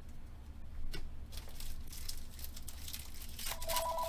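Foil trading-card pack being torn open and crinkled by hand. About three and a half seconds in, a telephone starts ringing with a rapid pulsing two-tone ring.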